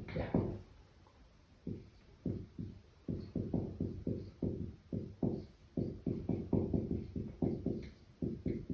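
Writing on a board: a quick, irregular run of light knocks and taps, about three or four a second, as numbers are written out, starting about two seconds in.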